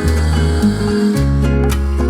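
Background music with plucked guitar and a steady bass line.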